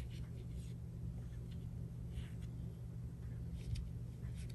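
Faint, soft brush strokes and dabs of a Chinese painting brush on Xuan paper, a few scattered short swishes, over a steady low hum.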